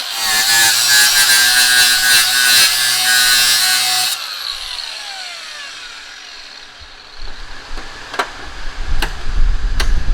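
A power cutting tool runs loudly, then is switched off about four seconds in, and its whine falls away as it spins down. After that come low wind-like rumbling and a few sharp knocks near the end.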